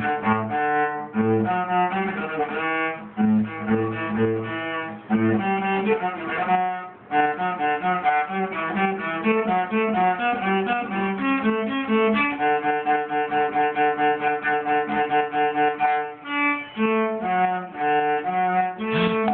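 Solo cello bowed through a melody of separate sustained notes, with a short break about seven seconds in and quicker runs of notes after it.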